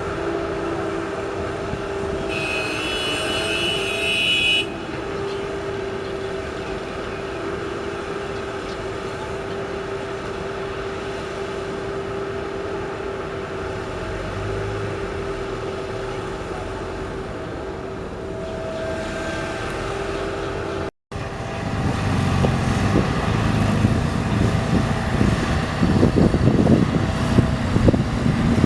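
Heavy vehicle engine running steadily with a constant whine, with a brief high-pitched tone about two seconds in. After a sudden break about 21 seconds in, a louder, rougher rumble with scattered knocks.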